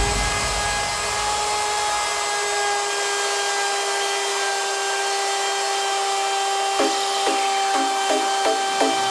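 Handheld electric router running at full speed with a steady high whine, its bit cutting a dado in wood as it is pushed along the jig. A regular pulsing, about three a second, comes in near the end.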